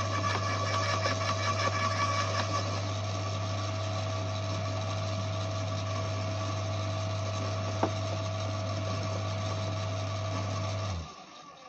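Electric garden shredder running steadily and crunching branches fed into it, rougher during the first few seconds. Near the end the motor switches off and runs down.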